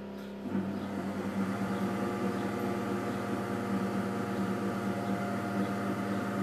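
Microwave oven running with a steady hum that gets louder and rougher about half a second in as it starts heating, bringing an agar-agar mixture back to the boil.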